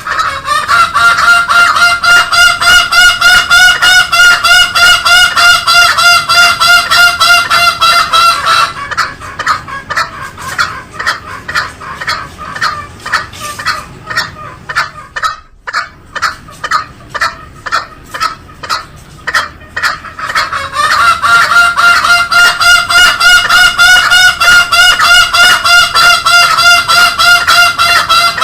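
Green junglefowl calling in a long, fast series of repeated pitched notes, several a second, loud and clear. The series runs for about eight seconds, gives way to a quicker, thinner clicking series in the middle, and resumes near the end.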